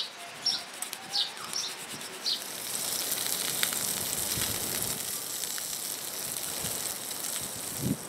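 Bacon sizzling in a frying pan, a steady hiss that sets in about two and a half seconds in. Before it, a bird chirps repeatedly in short calls.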